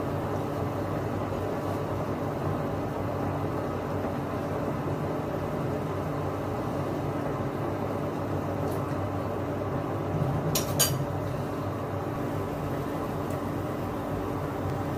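A steady droning hum, with a metal spoon clinking sharply against a stainless steel pot twice, about ten and a half seconds in.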